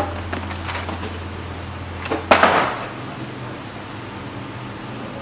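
A cardboard box handled against a wooden shelf: a few light knocks, then a louder knock with a short scraping rustle a little over two seconds in.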